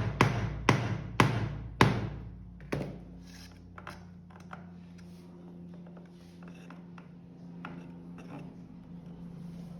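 A run of sharp knocks, about two a second, loudest in the first two seconds, then a few fainter taps over a steady low hum.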